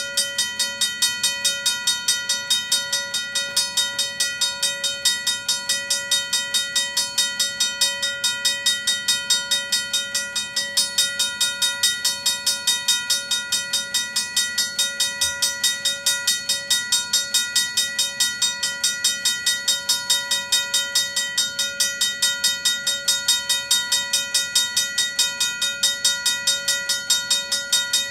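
RACO mechanical railroad crossing bell ringing continuously, its clapper striking the gong in rapid, evenly spaced strokes that leave a steady metallic ring.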